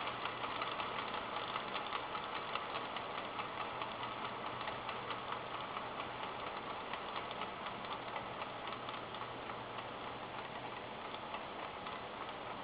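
Star MP312F-24-A dot matrix printer mechanism running, its motor driving the print head carriage in a fast, even clatter of ticks that gets a little quieter toward the end.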